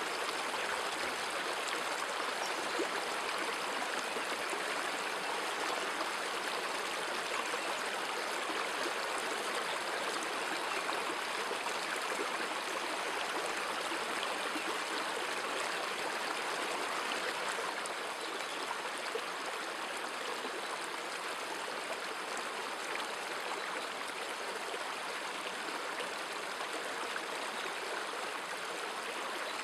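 Steady rush of a flowing stream, even and unbroken, a little quieter about two-thirds of the way through.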